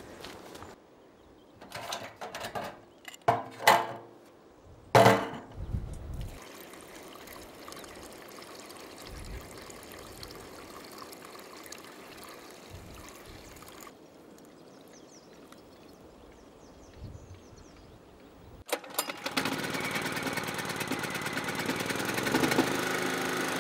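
A plastic jerrycan clunking a few times as it is carried and set down, then fuel pouring steadily through a funnel into a portable generator's tank for several seconds. About three-quarters through, the generator's petrol engine starts suddenly and runs steadily.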